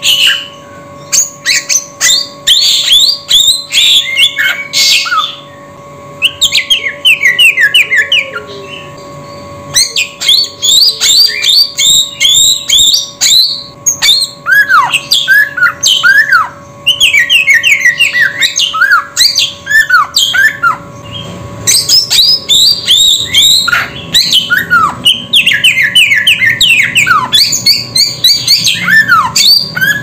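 Samyong songbird singing: loud bursts of rapid, high, down-slurred whistled notes in quick runs, separated by short pauses, with some lower falling notes mixed in. A faint steady tone runs underneath.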